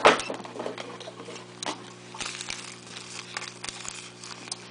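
A package knocks down onto a hard tabletop, then comes irregular rustling and small clicks as the package is handled and cut open with scissors.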